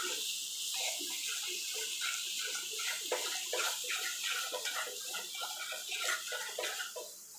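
Thick masala paste sizzling in a nonstick pan as a spatula stirs and scrapes it: a steady frying hiss with repeated short scraping strokes.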